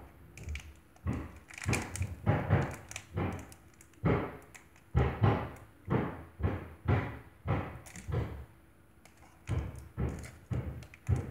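Plastic blind bag being tugged and twisted by hand as it is torn open: a run of short, dull thuds and rustles about two a second, quieter for a moment a little before the end.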